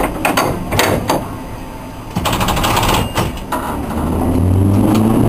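Historic tram's controller handle clicking through its notches, then a burst of rapid rattling. About four seconds in, the traction motors start humming, rising slightly in pitch as the tram picks up speed.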